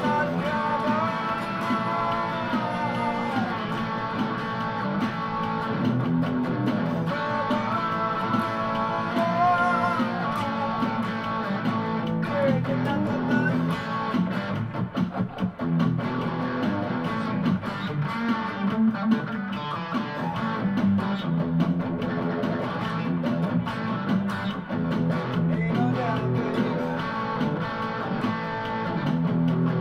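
Electric guitar playing a melody in an instrumental passage of a song, its notes bent so that they slide up and down in pitch, over steady lower notes.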